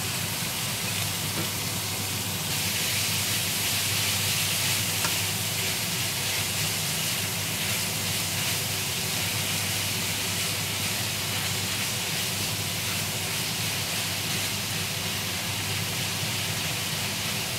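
Raw ground pork frying in hot oil with onion and garlic in a pan, stirred with a wooden spatula: a steady sizzle that grows louder about two seconds in.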